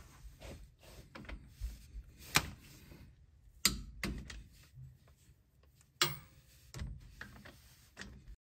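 Torque wrench and socket on the differential cover bolts of a Dana M60 front axle, the bolts being brought to 30 foot-pounds: sharp metallic clicks, three loud ones at about two and a half, four and six seconds in, with lighter clinks of the socket being moved and fitted onto the next bolt between them.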